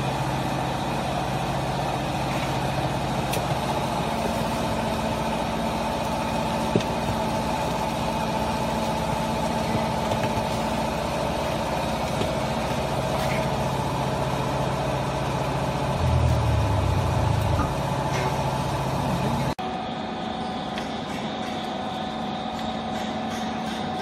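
Small vertical hydraulic baler's electric motor and hydraulic pump running with a steady hum. Near the end the hum deepens and grows louder for about two seconds, then cuts off abruptly, leaving a quieter hum.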